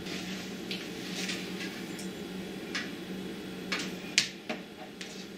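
Light clicks and taps of a thin audio cable and its plugs being handled and pushed into the back of stereo components, scattered and irregular, the loudest about four seconds in, over a steady low hum.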